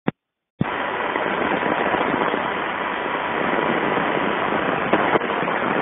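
AM radio receiver hissing with steady static and a faint steady whistle, the radio running through an AC power line noise filter while it is tuned. A single click just before the hiss starts, and two short clicks near the end.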